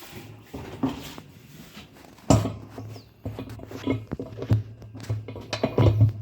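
Washing-machine basket (spin tub) being lowered and worked onto its drive hub by hand: a series of irregular knocks and scraping clicks of plastic and metal, the loudest about two seconds in and again near the end, with a steady low hum underneath.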